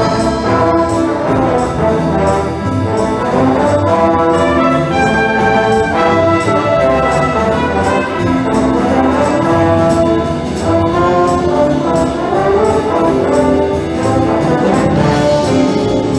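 Live wind band music: a brass section of trumpets and trombones playing a swinging tune over a steady cymbal beat.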